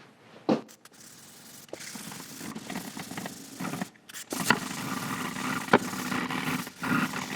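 A Scotch-Brite pad scrubbing back and forth over a WD-40-wetted cast iron band saw table, rubbing off surface rust. A single sharp knock sounds about half a second in, before the scrubbing starts.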